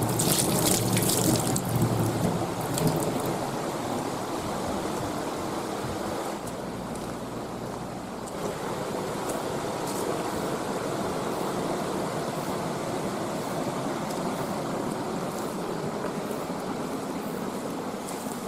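Water running from an outdoor tap onto a hand and into a stainless-steel sink, splashing loudest for the first three seconds, followed by a steady rush of flowing water.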